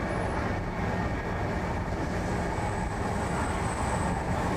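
Cabin noise of a Korean-built (Hyundai Rotem) MTR East Rail Line electric train running: a steady rumble of wheels and running gear. A high, thin steady whine comes in about halfway.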